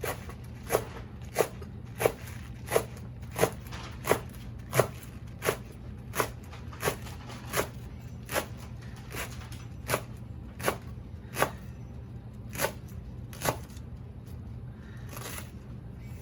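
Chef's knife chopping dinosaur kale on a cutting board: a steady run of sharp knocks, about one every 0.7 seconds, that stops shortly before the end.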